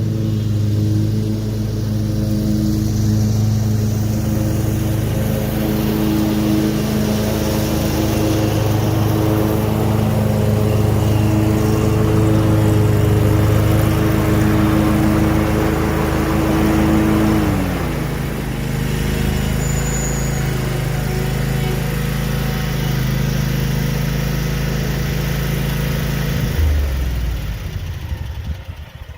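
Cub Cadet Pro X 600 stand-on mower's V-twin engine running steadily at mowing speed. Its pitch drops sharply about two-thirds of the way through as the engine slows, and near the end the engine shuts off and the sound dies away.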